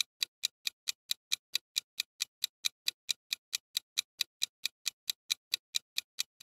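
Clock-ticking sound effect counting down a quiz timer: short, even ticks, about four to five a second.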